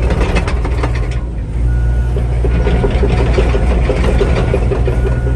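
John Deere 85G crawler excavator's diesel engine running under load as the machine travels on its tracks, with clanking from the tracks. A travel alarm beeps about once a second.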